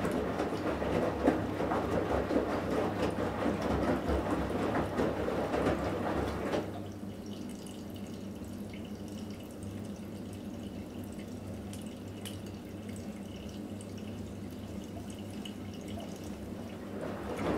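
Front-loading washing machine drum (Electrolux EWF 16589 W) tumbling laundry through water with a sloshing, splashing noise. It stops abruptly about six and a half seconds in, leaving only a faint steady hum during the drum's pause. The tumbling starts again near the end.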